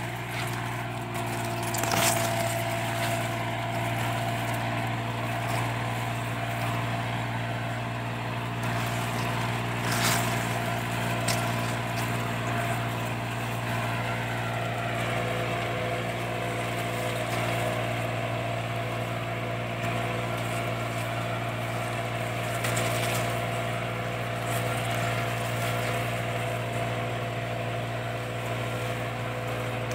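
John Deere 3036EN tractor's three-cylinder diesel engine running steadily as the tractor drives along a crop row. A couple of short sharp knocks about 2 and 10 seconds in.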